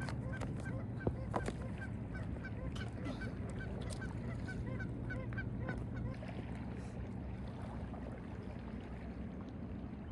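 Geese honking in a steady series, about three calls a second, until about six seconds in. Two sharp clicks about a second in, over a steady low wind rumble.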